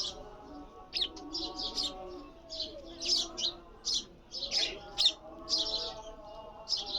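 Sparrow chirping repeatedly in short, sharp calls, with a fainter lower-pitched sound underneath.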